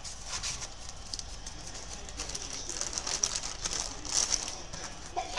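Cardboard sleeves and plastic packaging of soldering-iron tips rustling and crinkling as they are handled, in irregular small scrapes and crackles, over a low steady hum.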